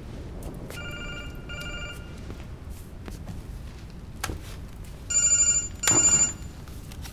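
Phone ringing with a warbling electronic double ring: one pair of rings sounds faintly about a second in, and a second pair sounds much louder about five seconds in. A single sharp knock comes between them.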